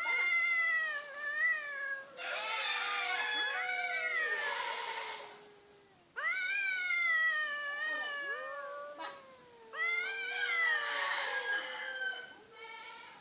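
Two cats yowling at each other in a standoff: long, wavering caterwauls, one low and drawn out beneath a higher one, turning raspy twice. The calling breaks off briefly about halfway and starts again suddenly.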